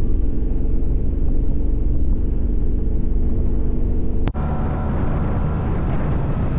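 Motorcycle riding at speed: steady engine drone under heavy wind rumble. For the first four seconds or so it is muffled and dull. Then it cuts abruptly to a fuller, brighter rush of wind and engine.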